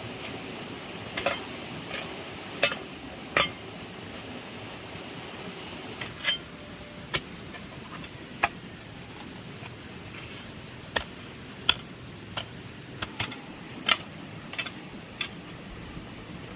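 Irregular sharp clinks and knocks of hard objects striking, about one every second, over a steady background hiss.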